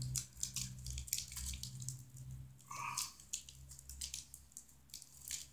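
Small irregular clicks and scrapes of a plastic anti-short bushing being worked by hand into the cut end of armored MC cable, the metal armor ticking against it, over a low steady hum.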